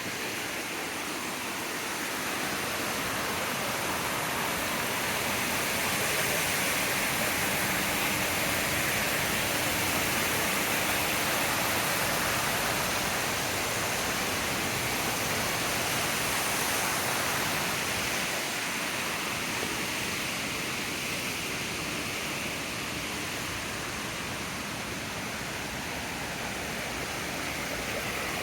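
Water rushing down a spring-fed cascade: a steady hiss that swells a little in the middle.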